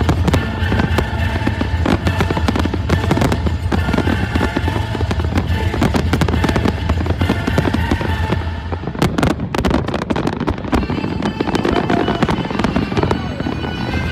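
Large fireworks display: a dense run of rapid bangs and crackles over a continuous low rumble that thins out abruptly about eight or nine seconds in, leaving a few sharp reports and scattered crackling. Music plays along with it.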